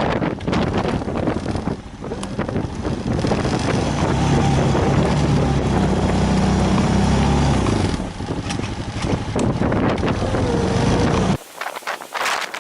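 Storm wind buffeting the microphone as a loud, continuous rushing rumble that swells in the middle. It drops off suddenly near the end to a few softer, shorter sounds.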